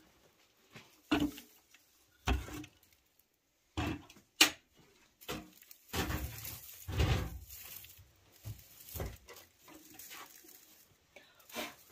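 Scattered rustling and knocking as dry straw is pushed into a clay hearth and a sooty metal kettle on the fire is handled, with one sharp click about four and a half seconds in.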